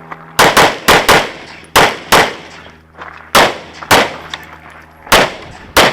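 Pistol shots fired in quick pairs during a USPSA stage run: about ten loud, sharp reports, mostly doubles a quarter second apart, with short pauses between the pairs. The gun is a Phoenix Trinity Honcho Open-division pistol shot at Major power factor.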